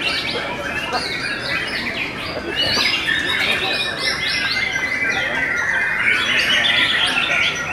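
White-rumped shamas singing, several birds at once: a dense, continuous tangle of fast whistles, chirps and sweeping notes.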